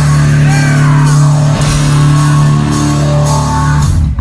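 Live heavy rock band playing loud: a held low guitar chord with drums and crashing cymbals, and high sliding notes above it. The music breaks off abruptly at the very end.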